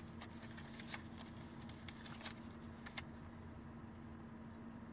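Quiet car cabin with a steady low hum and a few small handling clicks and rustles, four or five over the first three seconds.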